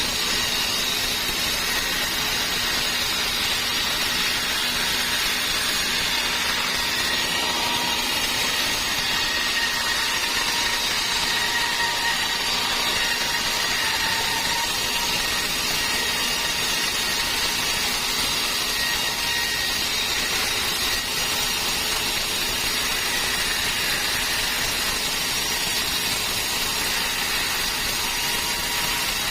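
Sawmill saw running steadily while it cuts through dry teak wood: an even machine noise with a steady whine over it.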